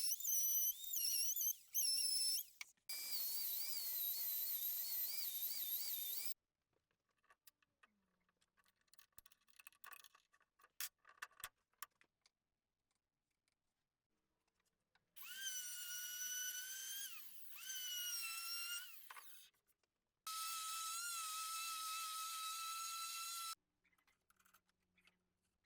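High-pitched whine of an electric woodworking power tool, heard in several cut-together runs of a few seconds each with near silence and faint clicks between them. In one run the pitch dips briefly twice before recovering.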